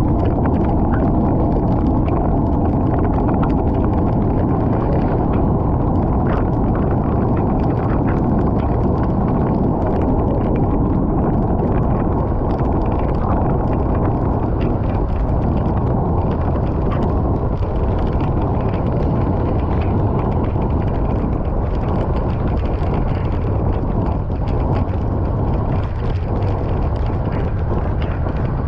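Steady, heavy wind buffeting on the microphone of a camera riding on a moving bicycle, a constant low rumble with faint scattered ticks over it.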